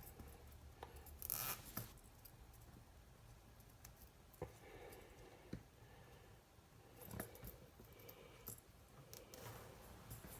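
Faint handling sounds of a plastic cable tie being fitted: a brief zip about a second in, then scattered small clicks and scrapes.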